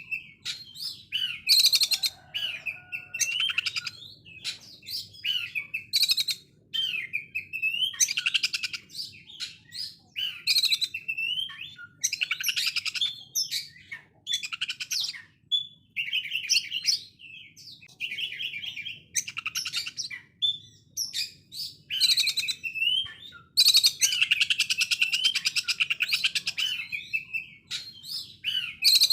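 Oriental magpie-robin singing in the harsh 'konslet' style: bursts of very rapid, rough rattling notes, likened to a sewing machine, mixed with short slurred whistles. The phrases repeat every second or two.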